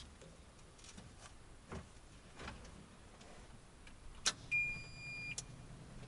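Kubota KX121-3 mini excavator being switched on before starting: faint knocks and clicks, then a sharp click about four seconds in, followed by a steady electronic dash beep lasting about a second over a low hum from the machine's electrics.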